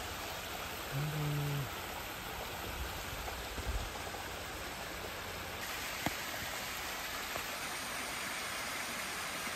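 Steady rushing of a mountain creek's waterfall cascading over rock. A brief wordless vocal sound from a person comes about a second in.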